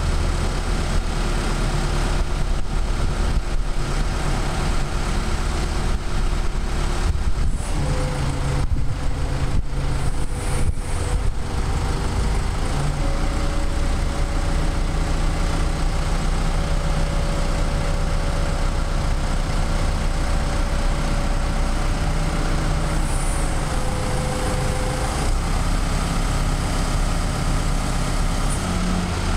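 Forklift engine running steadily, with a whine above it that changes pitch a few times as the raised mast and forks are worked hydraulically.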